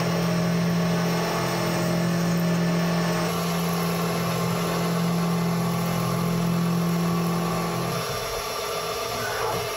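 Haas CNC vertical mill running a 3/8-inch flat end mill as it ramps into a steel block under flood coolant: a steady machining hum with a strong low tone, which drops away about eight seconds in.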